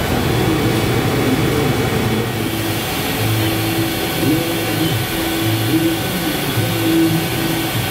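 Haas VF-4SS CNC vertical mill running, with a steady machine noise. From about three seconds in, a low hum starts and stops again and again, each time for under a second.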